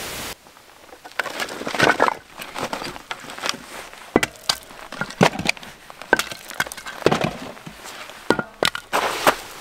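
Split firewood being handled and tossed into a steel campfire ring: an irregular series of sharp wooden knocks and clunks as the pieces strike each other and the ring.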